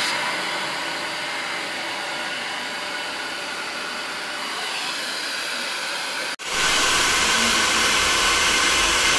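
Hand-held hair dryer blowing steadily on wet hair. About six seconds in the sound drops out for an instant and comes back louder.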